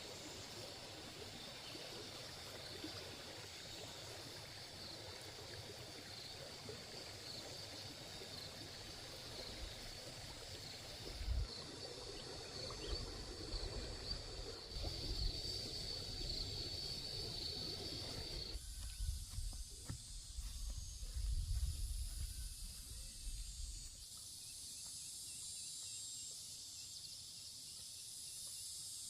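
Outdoor rural ambience of insects trilling steadily, with low rumbling gusts in the middle. About two-thirds of the way through, the sound changes abruptly to a higher-pitched insect chorus over quieter background.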